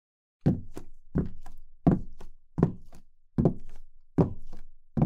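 Cartoon footstep sound effect: a steady run of soft thuds, about three a second.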